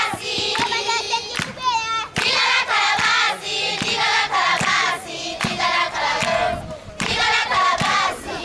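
A choir of primary schoolgirls singing a song together, with hand claps.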